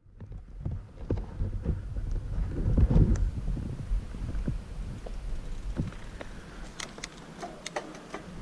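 Wind buffeting the microphone of a helmet-mounted GoPro as a mountain bike rolls along an asphalt path, a low, gusty rumble. Near the end come a few sharp clicks and rattles from the bike.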